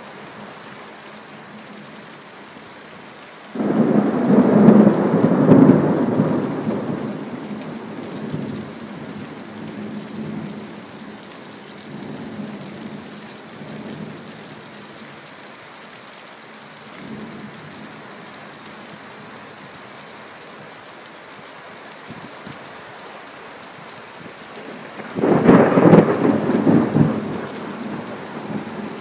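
Thunderstorm: steady heavy rain with two claps of thunder. The first breaks suddenly a few seconds in and rumbles away over several seconds; the second breaks near the end.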